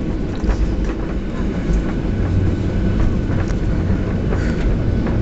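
Cabin noise inside a Boeing 737-800 rolling on the runway after touchdown: a loud, steady low rumble with scattered rattles and clicks.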